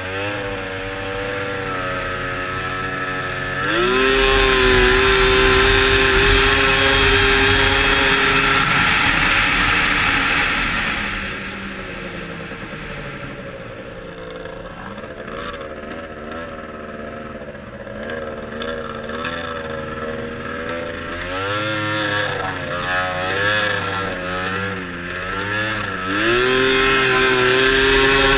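2001 Yamaha SRX 700 snowmobile's three-cylinder two-stroke engine under way. It revs up about four seconds in and holds a high steady note, then eases off and rises and falls with throttle changes for a long stretch, before revving up again to a high steady note near the end.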